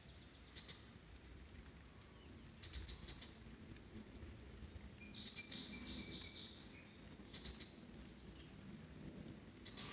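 Faint, scattered bird chirps in short clusters, with a brief high whistled note about halfway, over a soft hiss of light rain.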